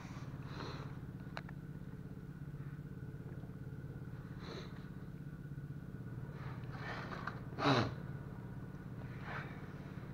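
A steady low machine hum, with faint handling noises from hands working a mini bike's fuel line and tank. One louder, brief noise comes about three-quarters of the way through.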